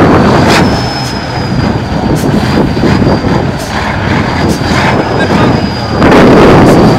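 Tatra 815 trial truck's diesel engine running under load, easing off for a few seconds and then revving up loudly again about six seconds in. A steady high-pitched whine sits over it, with a few sharp knocks.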